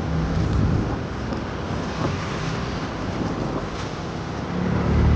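A vehicle's engine hums steadily under wind rushing across the microphone while on the move.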